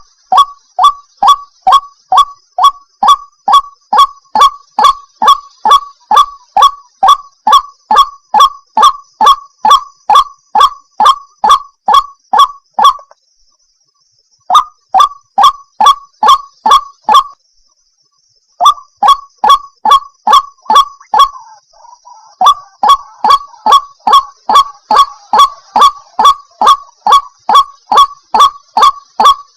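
White-breasted waterhen (ruak-ruak) calling: a fast, even run of loud, harsh repeated notes, about three a second, broken by two brief pauses near the middle. This is the bird's lure call used to draw waterhens in.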